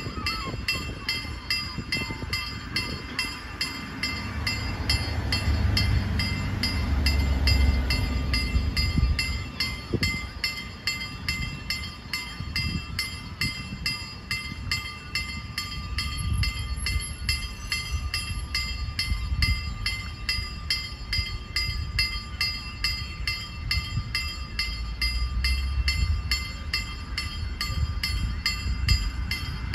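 Electronic level-crossing warning bell ringing in quick, even strikes throughout, over the low rumble of a passing train that swells and eases.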